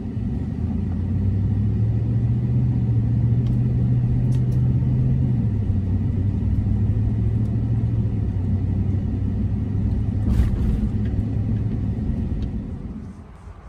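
Pickup truck driving on a city street, heard from inside the cab: a steady low engine and road rumble that swells as it picks up speed about a second in, with one short knock about ten seconds in, then drops away near the end.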